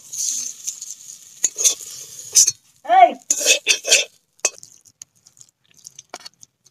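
A spatula scraping and clinking against a metal kadai and a plate as fried brinjal mash is scooped out and spread, with hot oil still sizzling in the pan for the first couple of seconds. A short pitched voice-like call sounds about three seconds in.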